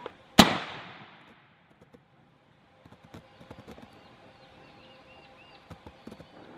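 A single rifle shot about half a second in, its report fading out over about a second. Faint bird chirps follow later.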